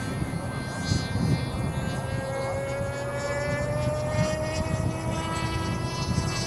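Engine of a radio-controlled speed plane, a steady high drone whose pitch slowly rises from about two seconds in as the plane passes at high speed, heard over a low, gusty rumble.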